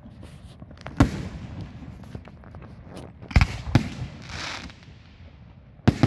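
Aerial fireworks going off: a loud bang about a second in, two more close together a little past the middle, and another near the end, with scattered small pops and a brief hiss between them.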